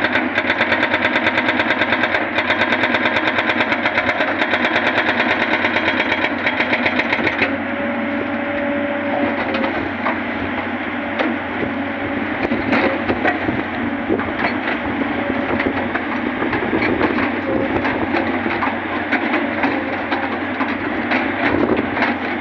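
Tata Hitachi 210 excavator's hydraulic rock breaker hammering rock with a rapid, even train of blows for about seven seconds. The sound then changes suddenly to a duller, steady machine noise with scattered knocks as the breaker keeps working the rock.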